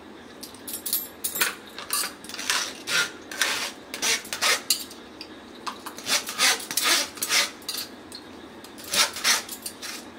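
A metal spoon scraping and clinking against a stainless-steel mesh strainer in irregular strokes, starting about a second in, as cooked masoor dal is pressed through it into a bowl.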